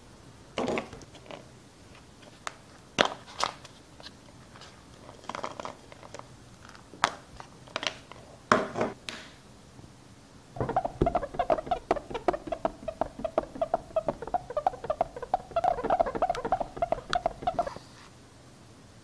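Plastic dental floss dispenser handled, with a scatter of sharp clicks and taps, then about seven seconds of rapid, squeaky zipping ticks as floss is pulled off the spool. The zipping stops a second before the end.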